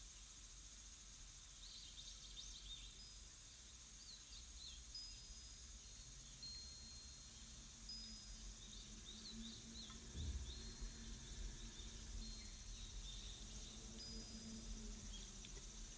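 Faint nature ambience: small birds give scattered quick chirps and short high whistles over a low steady rumble.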